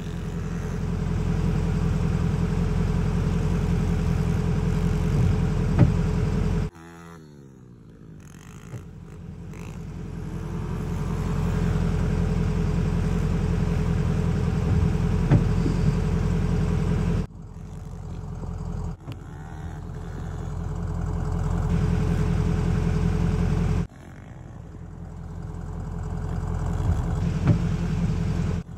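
Small pit bike engines running and revving, the sound building steadily as a bike pulls closer, then breaking off sharply and starting again several times, with a falling pitch once as the revs drop.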